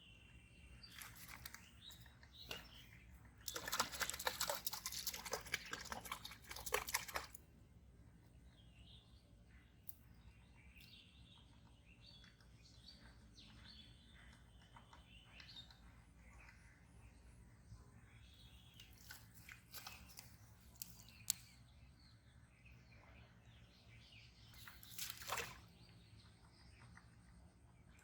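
Birds chirping, with a loud crackling, rustling noise lasting about four seconds a few seconds in, and a shorter one near the end.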